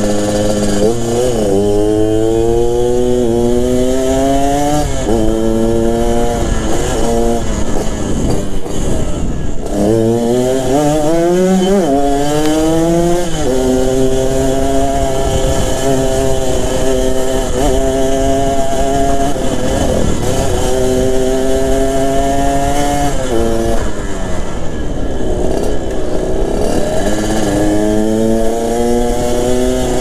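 Yamaha RX-King's two-stroke single-cylinder engine through a B2M racing exhaust, on the road. Its pitch climbs and drops back as it accelerates and shifts up through the gears, holds steady at cruising speed through the middle, and falls near the end before it climbs again.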